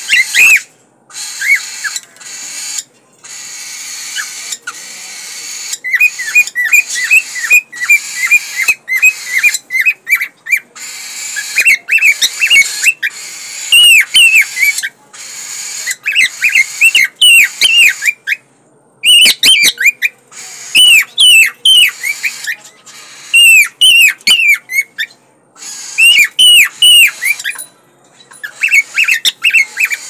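Male cockatiel singing his breeding-call song: a long run of loud, short whistled notes and warbles, many sliding up and down in pitch, in phrases broken by short pauses.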